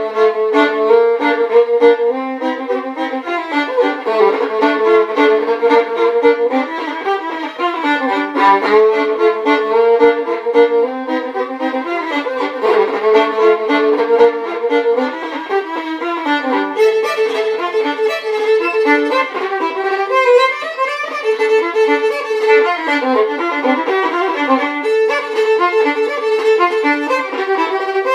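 Solo violin playing a lively melody of quickly changing notes, with nothing lower than the violin's bottom string.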